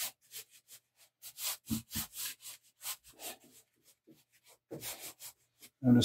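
Chalk pastel scratching and rubbing on paper in a run of short, irregular strokes, with a brief lull just past the middle.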